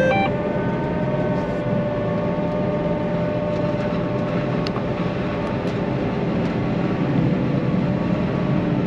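John Deere self-propelled forage harvester running steadily, heard from inside its cab: a dense hum with a steady high whine over it.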